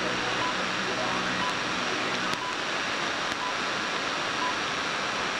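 BBC World Service time signal pips heard on a weak, distant AM broadcast under heavy static and hiss: five short high beeps about a second apart, with the longer final pip starting at the very end.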